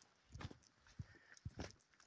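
Faint footsteps on tarmac, soft thuds about two a second, from a person walking a dog on a chain leash.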